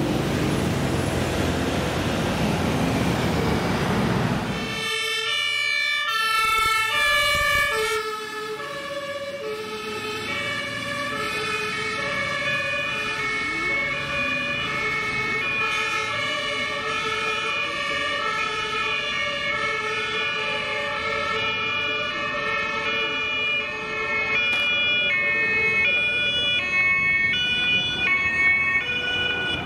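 Road noise of a heavy vehicle driving past, cut off suddenly about five seconds in. Then German two-tone emergency sirens (Martinshorn), several sounding at once, each stepping back and forth between a low and a high note.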